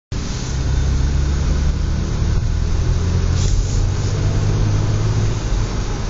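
Audi S4 B8's engine running with a steady low drone, and a brief hiss about three and a half seconds in.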